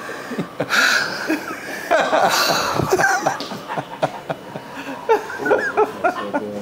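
People laughing hard, in uneven bursts of short chuckles and breathy laughs.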